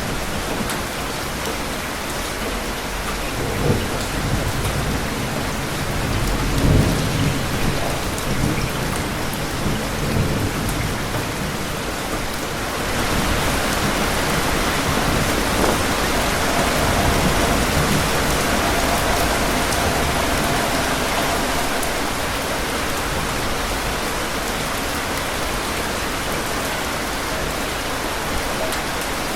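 Steady rain with thunder rumbling low in the first ten seconds or so, its loudest peal about seven seconds in. A little before halfway the rain grows heavier and keeps on steadily.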